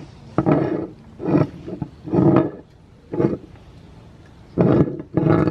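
Meat grinder crunching and grinding through hard items, in six loud, uneven bursts with quieter running between them.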